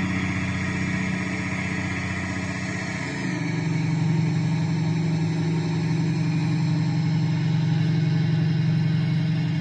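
Simulated bus engine in a driving video game, running with a steady drone. About three seconds in, its pitch steps down, and it then holds steady.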